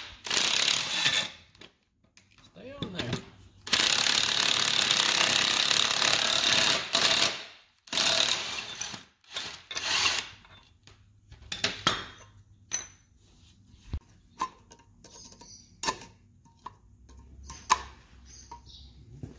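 Cordless impact wrench hammering on the screw of a ball joint press, pressing a new ball joint into a Ford Super Duty steering knuckle, in short spurts and then one long run of about three seconds. Afterwards come light metallic clicks and taps as the tool is set down and the snap ring is fitted.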